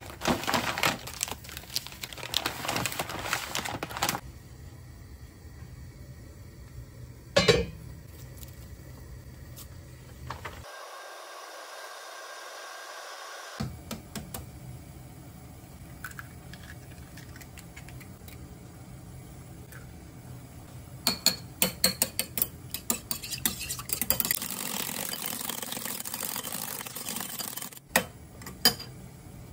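Eggs being beaten with a metal utensil in a ceramic bowl: a fast run of clicking and clinking against the bowl, which becomes continuous a few seconds before the end. Scattered clinks and handling noises come before it.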